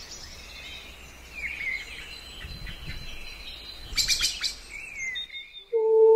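Wild birds chirping, with scattered short calls and quick up-and-down glides over a faint steady hiss. There is a quick burst of sharp notes about four seconds in. A sustained low music tone comes in just before the end.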